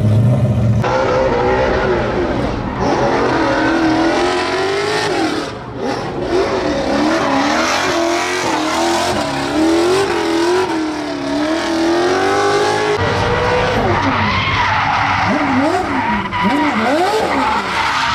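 Drift car being driven hard in a drift, its engine revving up and down as the throttle is worked, over the squeal and hiss of spinning tyres. In the last few seconds the revs swing in wide sweeps up and down.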